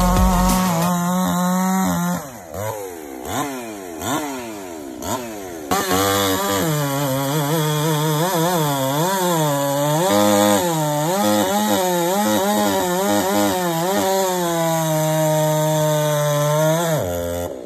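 Ported two-stroke chainsaws cutting a large log at full throttle. One saw cuts steadily for about two seconds, then quick revs rise and fall for a few seconds. From about six seconds a second saw runs a long cut, its engine note dipping and recovering under load, before the throttle drops near the end.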